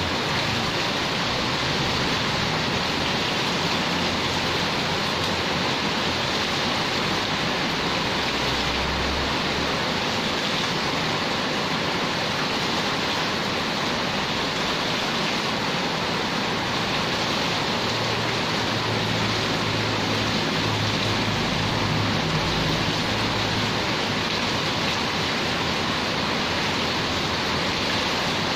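Heavy rain pouring steadily onto a concrete courtyard, a dense, even hiss.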